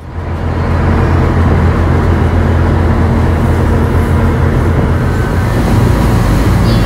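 Ferry engine running with a steady low drone, under a constant rush of churning wake water and wind.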